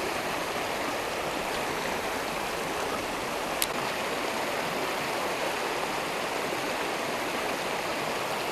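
Creek spillway water rushing over rocks, a steady, even rush. One brief click about three and a half seconds in.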